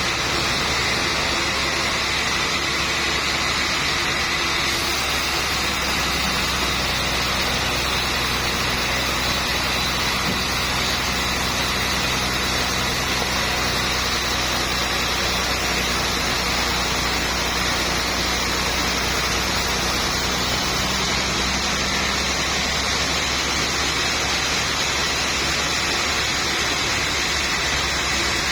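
Sawmill machinery running steadily through a trembesi log. A deeper hum and brighter hiss come in about five seconds in and drop away again near the end.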